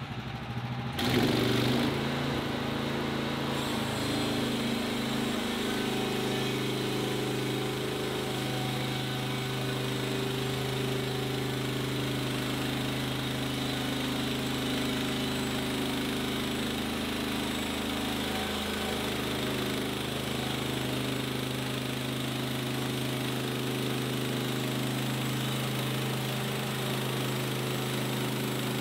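Woodland Mills HM130 Max portable bandsaw mill running, its gas engine coming up to a steady high speed about a second in and holding there while the band blade cuts along an old railroad tie beam.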